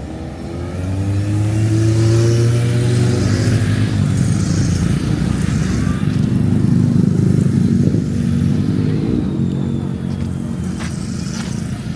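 A motor vehicle passing close by: its engine speeds up, rising in pitch over the first few seconds, then a loud rumble that slowly fades as it goes past.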